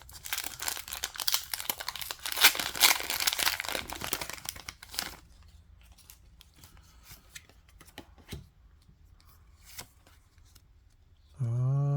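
Foil booster-pack wrapper being torn open and crinkled for about five seconds, followed by faint clicks of cards being handled.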